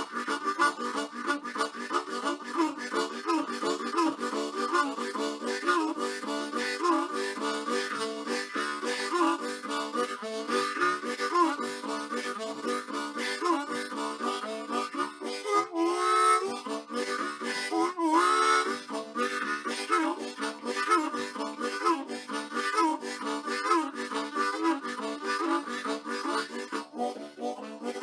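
Harmonica music: a quick run of notes that goes on throughout, with a couple of bent, sliding notes a little past halfway.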